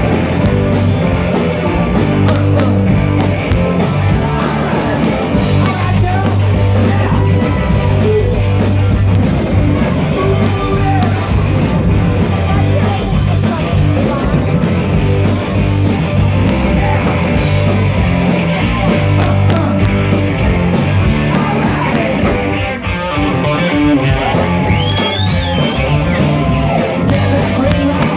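Live rock band playing loud and amplified: electric guitars, bass and drums with keyboard, and a male singer at the microphone. The sound briefly thins out near the end before the full band comes back.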